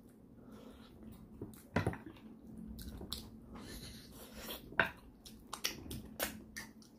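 A person chewing a mouthful of pork leg with gravy eaten by hand: wet chewing with frequent sharp lip smacks and mouth clicks at an irregular pace.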